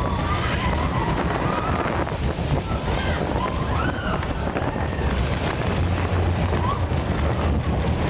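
Ride on a compact steel roller coaster: the train rumbles along the track and wind buffets the microphone, with riders' voices crying out in short rising-and-falling whoops over the noise.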